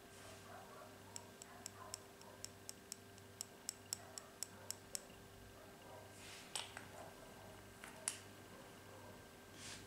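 Faint, light plastic clicks, about three or four a second for a few seconds, as a plastic spatula and brush tap against a small eyeshadow jar to knock pink powder onto slime. Then two louder single knocks with a brief rustle as the tools are put down.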